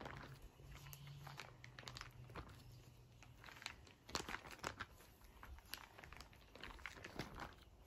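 Plastic pocket pages of a trading-card binder crinkling and rustling as they are turned by hand, in faint irregular crackles, loudest a little after four seconds in.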